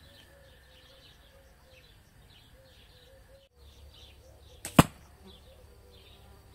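An arrow from a homemade 44-inch fiberglass bow strikes a target of layered carpet and high-density foam with a single sharp hit, about three-quarters of the way through, a smaller sound just before it. Faint bird chirps throughout.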